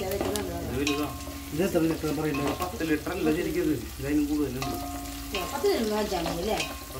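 Food frying in hot fat in a cooking pot while being stirred with a ladle, with repeated scraping clicks against the pot. Under it runs a wavering, pitched background sound that bends and holds its notes.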